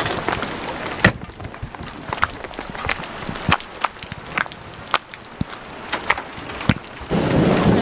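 Hailstones striking the RV, its metal steps and the gravel: scattered sharp clicks and knocks over a steady hiss, with one loud crack about a second in. Near the end the hiss swells louder.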